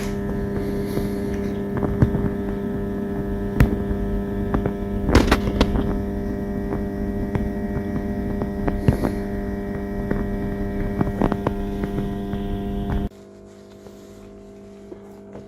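A steady hum with many even overtones and scattered sharp clicks, which drops suddenly to a much fainter hum about 13 seconds in.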